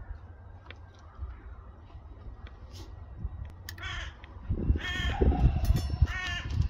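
A crow cawing three times in the second half, harsh calls a little over a second apart, over a low rumble.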